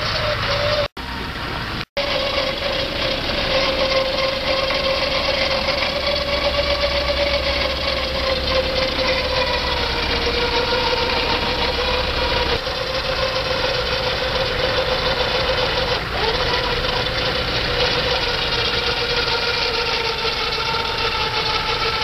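HPB5000 winch motor whining steadily as it hauls a roughly three-ton pickup on its cable, its pitch sagging slowly under the load. A vehicle engine idles underneath.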